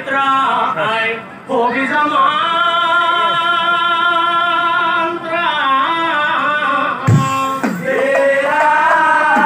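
Male lead singer of an Assamese Nagara Naam group singing a devotional song in long held notes that bend in pitch, with short breaks between phrases. A single low thump about seven seconds in.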